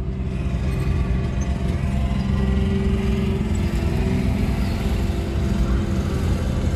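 A car driving off and running steadily: engine hum and tyre noise with a few steady low tones.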